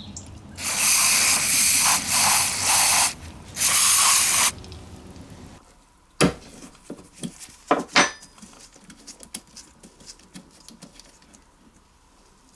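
Loud hissing spray blasts, about five in quick succession over four seconds, cleaning out a rusty mower carburetor, followed by a few light clicks and knocks as the part is handled.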